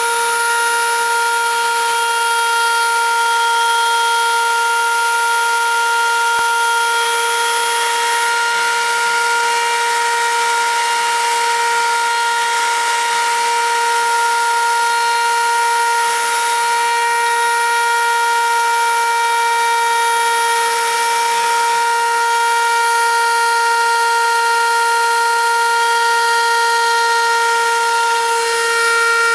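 Homemade CNC machine's spindle whining steadily at high speed while its cutter mills olive wood, with a hiss of cutting noise under the whine.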